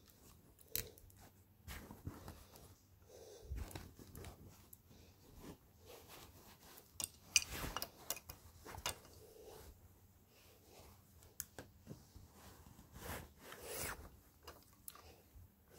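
Jupiter clarinet parts and their hard case being handled: scattered light clicks, taps and rubbing, the sharpest about a second in and midway.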